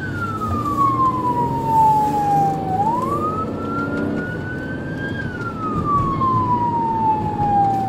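Police car siren in wail mode: a slow falling tone that swings back up about three seconds in and falls slowly again, over the patrol car's engine and road noise inside the cabin.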